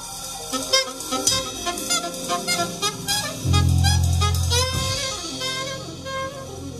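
Small jazz group playing a slow standard: alto saxophone, vibraphone, piano, double bass and drums, with many struck, ringing notes and a strong deep bass note about halfway through. Recorded on an iPhone 12 Pro.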